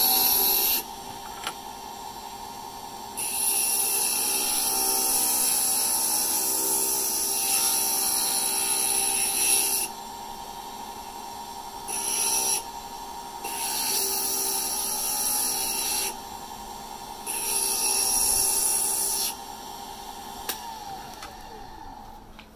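Electric water-cooled glass grinder running with a steady motor whine, and a harsh high grinding in several stretches of a few seconds each as a piece of stained glass is pressed against the diamond bit to smooth its sharp scored edges and shape it. Near the end the motor is switched off and winds down in pitch.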